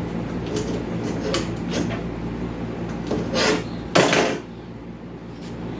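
Light clicks and clatter of small hard parts being handled and sorted, with a louder rattle about four seconds in, over a steady low hum.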